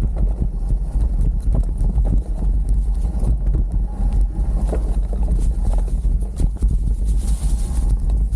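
Full-suspension mountain bike riding downhill over leaf-covered dirt trail: tyres rolling through dry leaves and dirt, with constant rattling knocks from the bike over bumps. Heavy low wind rumble on the camera's microphone runs under it.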